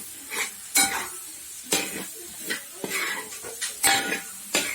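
A spoon stirring beef roast in thick gravy in a cooking pan: irregular scrapes and knocks against the pan, with a light sizzle between the strokes.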